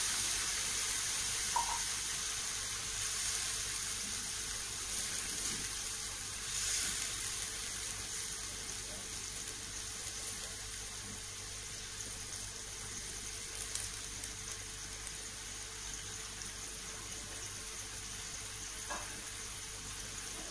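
Ground spice paste and water cooking in a wok: a steady sizzling hiss that slowly grows quieter.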